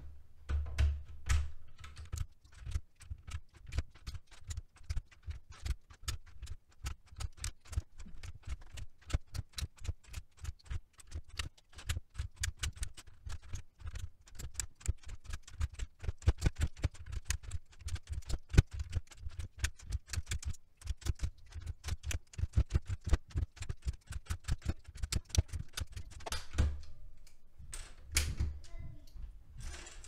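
Keycaps being pulled one after another off a Tecware Phantom mechanical keyboard with a keycap puller: a fast, irregular run of plastic clicks and clacks as each cap pops off its switch stem.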